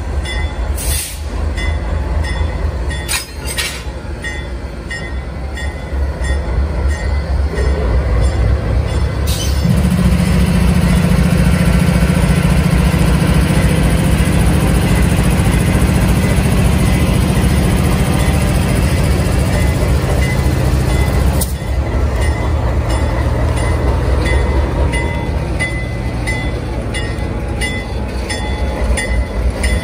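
Diesel-electric locomotive running as it rolls slowly past at close range: a deep pulsing engine rumble with a strong steady drone that swells about ten seconds in and drops off about twenty-one seconds in as the locomotive goes by, and a few sharp knocks.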